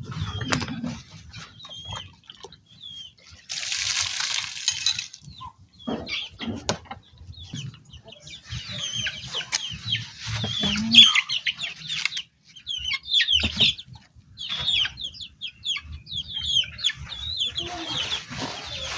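Chickens clucking and calling in quick, short chirping notes, which come thickly through the second half. A brief rushing noise is heard about four seconds in.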